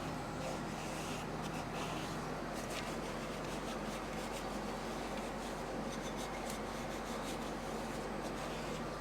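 Shop towel damp with brake cleaner rubbed around a wheel bearing race inside a brake hub: irregular dry scrubbing and scraping strokes.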